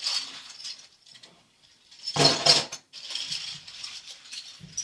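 Metal bottle caps clattering and rattling against each other as they are put back into a box. There is a louder burst of clatter a little past halfway.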